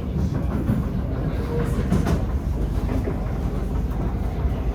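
Inside a Kawasaki–Nippon Sharyo C751B metro car running between stations: a steady low rumble of the wheels on the track, with a few faint knocks about two seconds in. These are the kind of weird knocking noises that the rider is quite sure are not caused by flat wheels.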